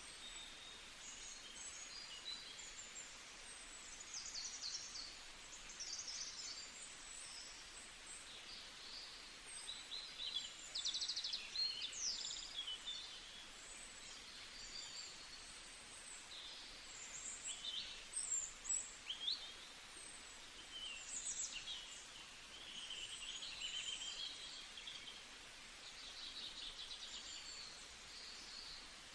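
Several small birds chirping and trilling in short, high calls over a faint steady hiss of outdoor background noise.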